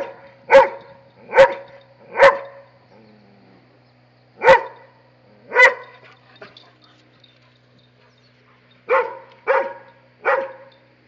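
Dobermann barking: about nine loud single barks in three groups, with pauses of a few seconds between the groups.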